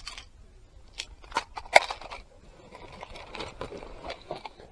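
Fishing reel being cast and worked: a few sharp clicks about a second in, then a stretch of fine rapid ticking as the reel is cranked to bring in a small spinner lure.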